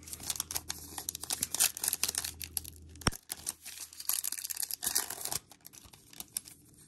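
A trading-card pack's wrapper being torn open and crinkled by hand: a run of crackling rustles with a sharp click about three seconds in, growing quieter near the end.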